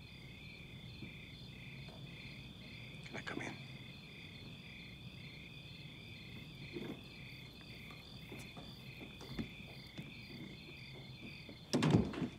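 Night insect chorus of crickets: a steady high trill with rhythmic pulsing chirps over it, continuing throughout. A few soft knocks are heard, and a louder thump comes near the end.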